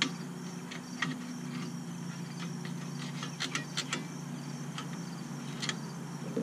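Light metallic clicks and taps as small parts of a trailer's electric drum brake, the spring and magnet arm at the backing plate, are handled and fitted, with a quick run of clicks a little past halfway. Under them run a steady low hum and insects chirring.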